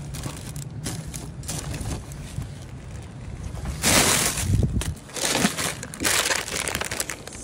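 Clear plastic bag crinkling and rustling as a hand rummages through it. It is soft at first, then comes in three louder crinkles from about four seconds in.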